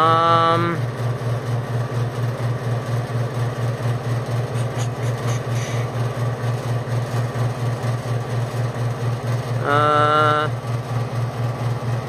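A 1971 Westinghouse air conditioner, model SL030COW, running: a loud low compressor hum that pulses evenly about three times a second, under a steady rush of fan noise.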